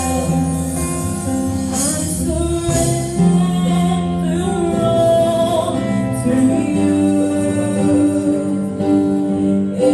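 Live gospel worship song sung by a small group of singers on microphones, a woman's voice leading, backed by keyboard, drums and electric guitar, with long held notes.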